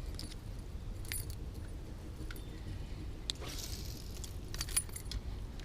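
Faint scattered clicks and light metallic jingling over a low steady rumble, with a short hiss about three seconds in.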